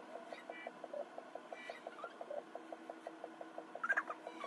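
Faint background music with a steady quick ticking pulse, about five ticks a second, and a few short high notes. A brief squeaky chirp near the end.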